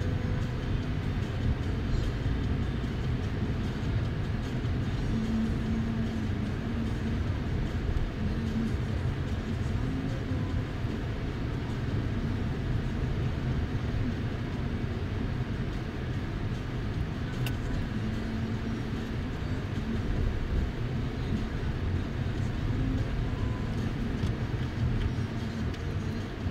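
Car driving, heard from inside the cabin: a steady low rumble of engine and tyres on the road, with a faint engine hum rising and falling a little.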